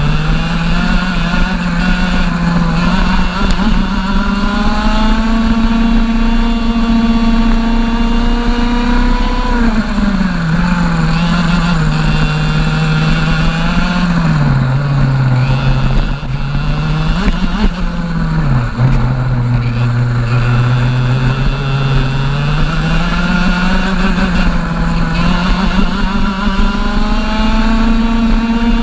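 A TAG racing kart's 125cc single-cylinder two-stroke engine at racing speed, heard from on board: the revs climb along the straights and fall away several times as the driver lifts for corners, the deepest dip about two-thirds of the way through, then climb again near the end.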